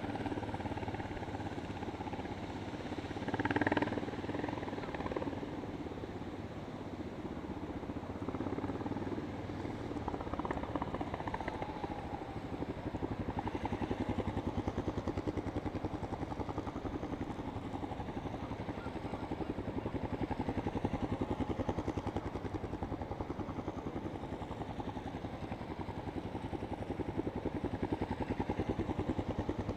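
Yamaha SRX 600's single-cylinder engine running with an even, closely spaced pulse, with a brief rise in revs about four seconds in.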